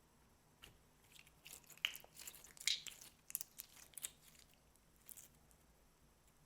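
Slime with floam beads being squeezed and kneaded by hand, crackling with a quick, irregular run of small pops and clicks that is thickest in the middle and dies away about five seconds in.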